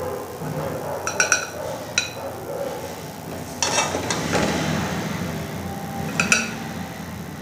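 Metal serving spoon clinking against a glass plate and a steel pot as cooked rice is spooned out: a quick run of ringing clinks about a second in, another at two seconds and a pair near six seconds, with a longer scrape around three and a half seconds in.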